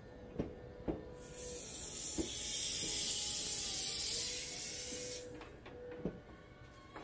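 Compressed air hissing out from under a Sotetsu 12000 series electric train as its air brakes release: a steady hiss that swells in about a second in and dies away about five seconds in. A few sharp clicks from the underfloor gear and a faint steady tone can be heard around it.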